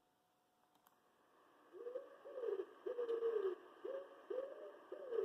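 Pigeon cooing: a repeated phrase of low, arched coos, starting a little under two seconds in, with some coos drawn out longer than others.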